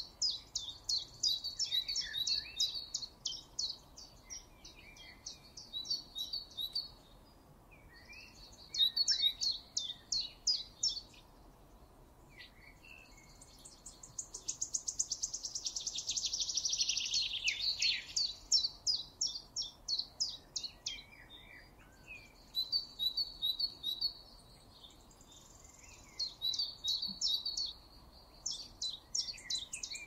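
Songbirds singing: a bird repeats fast, high trilled phrases of a few seconds each, with softer, lower chirps from other birds between them.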